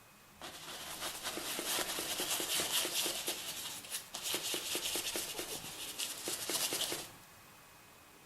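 A stiff paintbrush scrubbing and dabbing paint onto a canvas in quick repeated strokes, about four a second, with a short pause near the middle; it stops suddenly about a second before the end.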